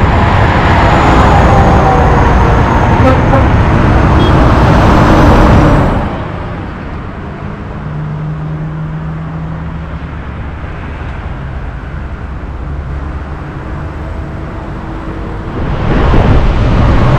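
Wind rushing over the microphone of a camera on a moving bicycle, with road traffic behind it. About six seconds in it drops suddenly to quieter street traffic with a faint engine hum, and the wind noise comes back near the end.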